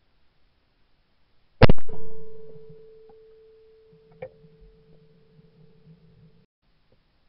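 A single shotgun shot at a trap clay about a second and a half in, picked up by a camera mounted on the gun's barrel, followed by a steady ringing tone that fades slowly and cuts off suddenly about six and a half seconds in. A smaller sharp click comes about four seconds in.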